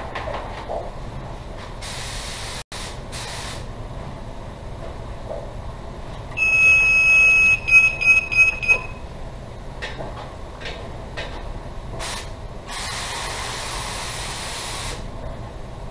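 Compressed-air spray gun on a coiled air hose hissing over a hydrographic dip tank: two short bursts, then a steady spray of about two seconds near the end, typical of spraying activator onto the floating print film. About six seconds in, a loud high electronic beep sounds for a second and then breaks into several short beeps, over a steady low background hum.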